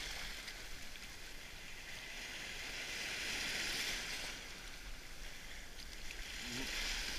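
Shallow surf washing and foaming over rocks at the water's edge, a steady hissing wash that swells to a peak about halfway through, then eases.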